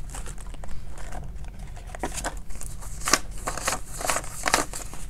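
Paper banknotes rustling and flicking as a stack of bills is handled and counted by hand, with sharper flicks about three seconds in and again near the end.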